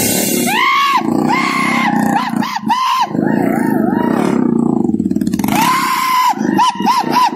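KTM Duke motorcycle engine revved hard again and again, its pitch climbing, holding flat at the top and dropping back each time, while the bike is ridden on its back wheel in a stunt wheelie.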